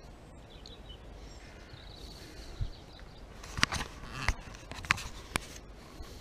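Handling noise from a float rod and centrepin reel being worked while a fish is played: about five sharp clicks and knocks spread over three seconds, starting a couple of seconds in, over a faint steady outdoor background.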